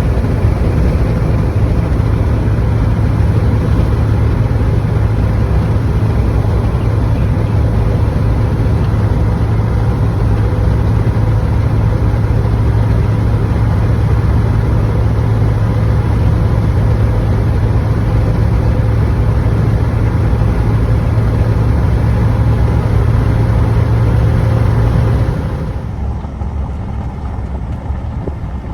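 Steady engine and road drone inside a moving vehicle, with a strong low hum. It drops somewhat quieter about 25 seconds in.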